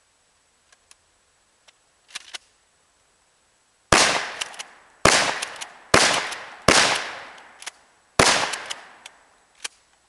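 12-gauge shotgun fired five times in quick succession, each blast trailing off in a ringing echo, with a few light clicks of handling before the first shot.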